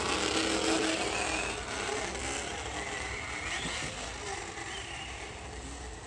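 A Traxxas Slash 4x4 VXL's on-board audio speaker plays a recorded V8 engine sound while the RC truck drives, the simulated engine note rising and falling.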